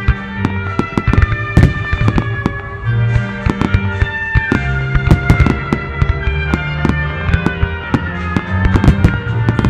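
Fireworks shells bursting in quick succession, many sharp bangs one after another, over music with sustained pitched tones and a heavy bass.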